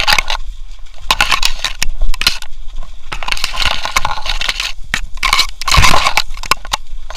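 Tall grass and dry reeds brushing, crackling and scraping against a camera on a Weimaraner's back as the dog pushes through them, in irregular rustling bursts.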